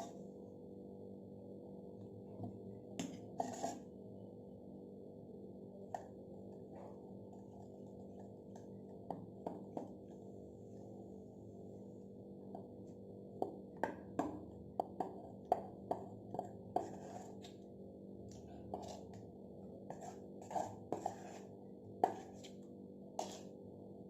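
Scattered light clinks and taps of a spoon against a steel bowl and pan as dhokla batter is poured and scraped out, sparse at first and more frequent in the second half, over a faint steady hum.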